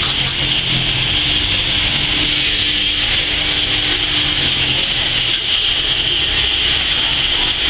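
Fish-scaling machine running steadily: a low motor hum under a constant hiss.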